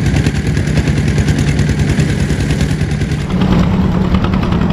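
Small boat engine running steadily with a rapid, even exhaust beat; its sound shifts slightly a little past three seconds in.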